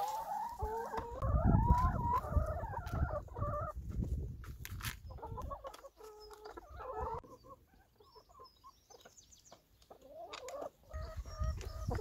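Brown laying hens clucking and calling, with long wavering calls in the first few seconds and again later, over a low rumble. It goes quieter for a couple of seconds past the middle.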